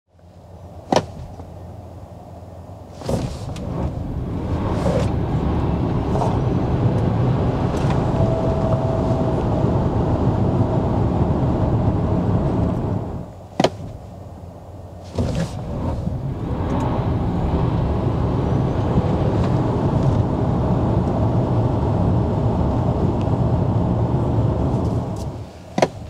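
Cabin noise in a Nio ET7 electric car under way: a steady rumble of road and tyre noise that builds at the start of each of two runs and drops to a quieter hum between them, with a few sharp clicks.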